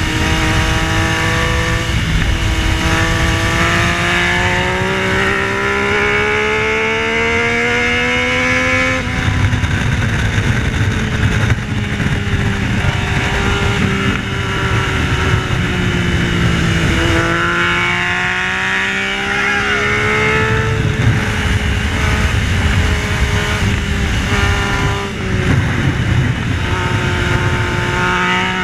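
Yamaha Tracer 900's 847 cc inline-three engine at track speed. The pitch climbs for several seconds under acceleration, drops sharply about nine seconds in, sinks slowly, then climbs again past halfway before levelling off.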